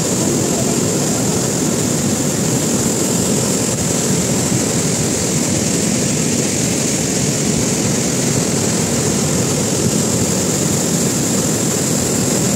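Muddy flash-flood water rushing through a grove, a loud steady rush with no breaks.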